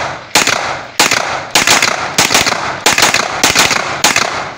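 KRISS Vector semi-automatic 9mm carbine fired in quick succession: seven shots about 0.6 s apart, each trailing off in an echo. It is fast trigger work, not full auto.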